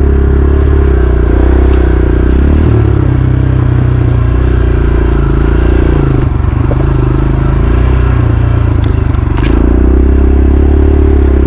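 Dirt bike engine running steadily while being ridden, with a few sharp clatters about two seconds in and a short cluster of them a couple of seconds before the end.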